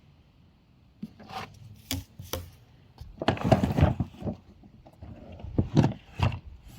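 Irregular knocks, clicks and a second or so of rustling clatter, the sound of a wet/dry vacuum's plastic parts being handled with its motor off.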